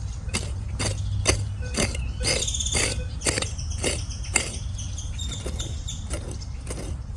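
Digging tool repeatedly chopping and scraping into forest soil to dig out a metal-detector target, in irregular strokes about once or twice a second. A bird chirps briefly about two and a half seconds in.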